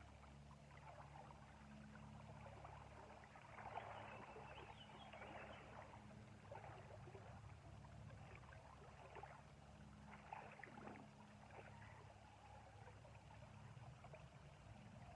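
Near silence, with faint irregular trickling and splashing of river water over a low steady hum.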